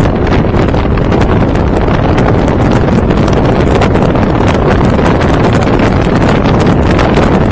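Heavy wind noise buffeting the camera's microphone on a Honda VFR1200F motorcycle at speed, with the bike's V4 engine running underneath. The sound is loud and steady throughout.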